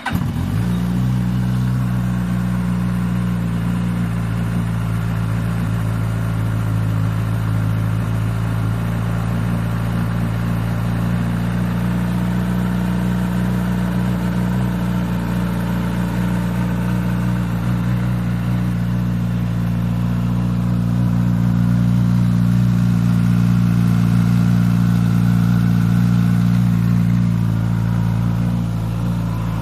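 Suzuki GSX-S1000 GT+ inline-four engine starting up while hot and settling into idle, with the startup rattle that the owner considers not normal. The idle rises slightly about two-thirds of the way through and drops back near the end.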